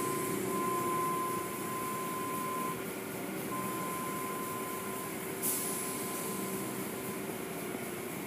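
Automatic car wash machinery running: a steady mechanical hum with a high steady whine that drops out briefly in the middle, and a hiss of spray that comes on about five and a half seconds in.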